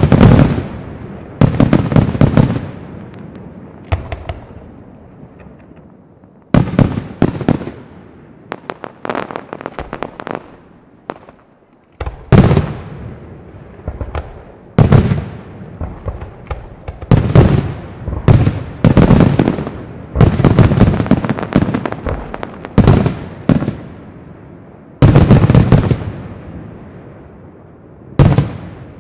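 Aerial fireworks shells bursting in a big display: about a dozen loud volleys of sharp bangs, some in quick runs, each dying away before the next.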